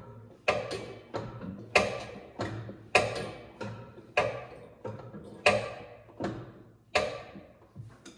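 Repeated metallic clanks from a pry bar barring the engine over by hand, a sharp ringing clank about every second and a quarter, each fading out, with smaller knocks in between.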